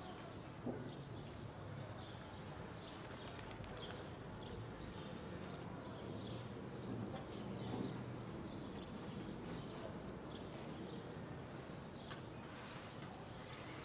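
Quiet outdoor ambience: small birds chirping over a low steady background, with scattered faint clicks or knocks.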